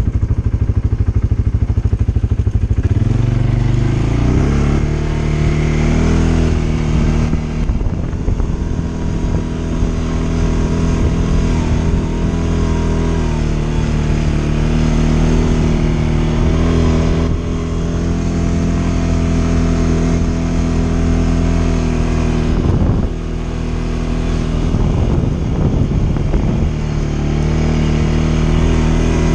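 CFMOTO CF550 ATV's single-cylinder engine heard from the rider's seat. It runs steadily for the first few seconds, then revs up about three seconds in and keeps running under changing throttle. It eases off briefly a little over twenty seconds in, then picks up again.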